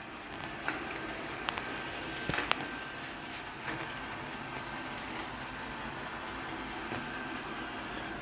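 Coredy 500+ robot vacuum running: a steady motor hum with a thin high whine, and a few sharp clicks in the first two and a half seconds.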